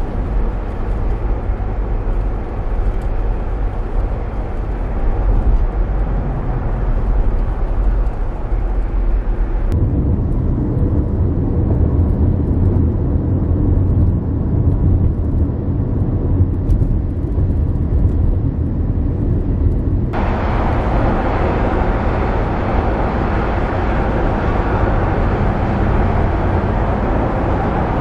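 Steady road and wind noise of a car on the move, heard from inside the cabin. It comes in three stretches that change abruptly, about ten seconds in and again about twenty seconds in. The middle stretch is a duller low rumble with less hiss, and the last is brighter, with more hiss.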